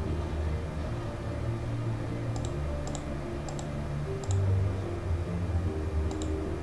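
Computer mouse clicking: about five sharp double clicks, the button's press and release, at irregular intervals, over low held background tones.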